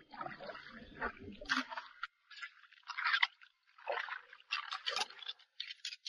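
Irregular short scrapes and crunches with small splashes: metal crab tongs working over wet stones in a shallow tide pool.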